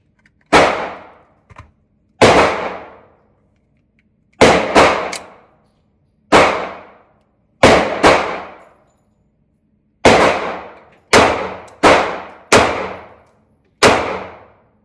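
FMK 9mm C91 pistol firing 115-grain Fiocchi rounds: about a dozen single shots, one to two seconds apart with a few quick pairs. Each shot rings out briefly afterwards.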